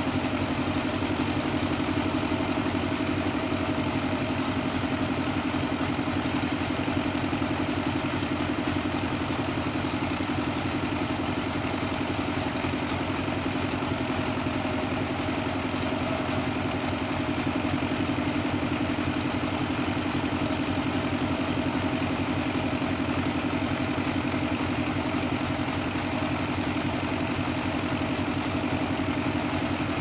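Sawmill engine running steadily, holding the same pitch and level throughout.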